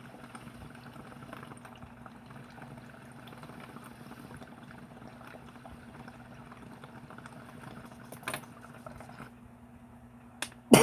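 Water bubbling in a glass bong as smoke is drawn through it, a steady gurgle for about nine seconds, with one sharp click about eight seconds in.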